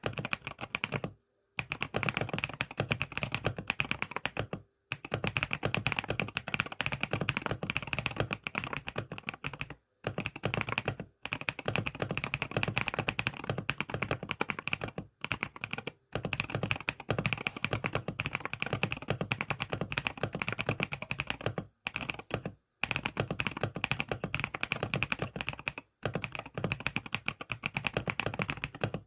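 Fast, continuous typing on an MK101 mechanical keyboard: a dense run of key clicks, with short pauses every few seconds.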